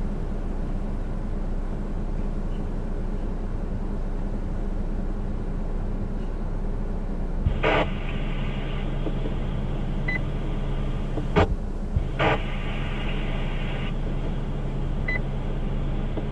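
Radio receiver hissing with a steady low hum and no voice. About halfway through a transmission keys up with short bursts of static and a sharp click, and a couple of brief high beeps follow.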